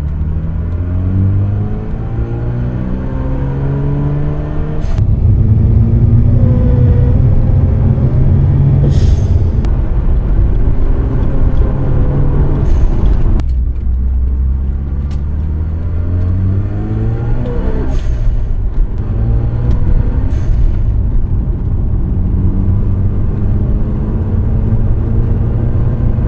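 Mazda RX-7 FD3S's sequential twin-turbo 13B rotary engine revving up and dropping back several times, with a few brief hisses around the turbo transition: the transition leak hiss and squeak the owner is showing.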